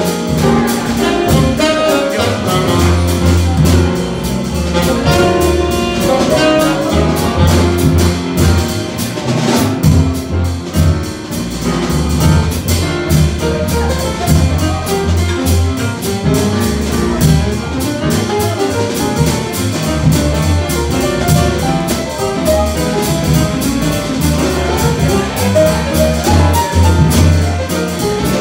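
Live jazz blues on acoustic piano, upright double bass and drum kit, the piano carrying the lead line over the bass and drums.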